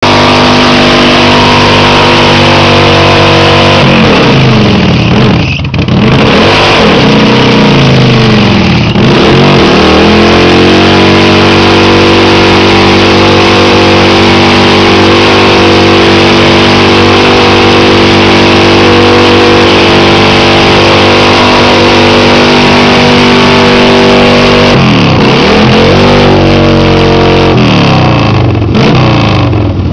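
Car engine held at high revs and very loud, clipping the recording. Its pitch drops and climbs back about four and eight seconds in, then holds steady before dipping and rising again near the end.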